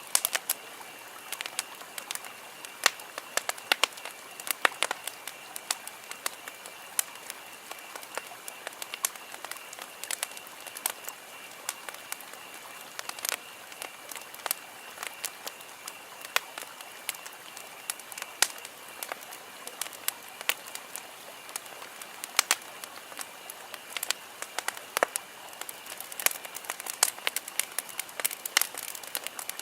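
Campfire wood burning, crackling and popping with many irregular sharp snaps over a low steady hiss. A faint steady high-pitched tone runs underneath.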